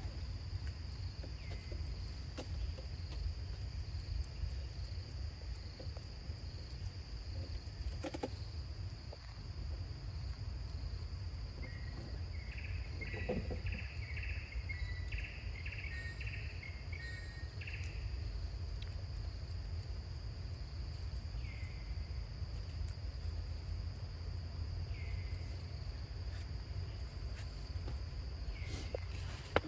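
Insects droning steadily on one high pitch over a low rumble. About twelve seconds in, a run of short high chirps lasts around six seconds, and a few single short calls come later.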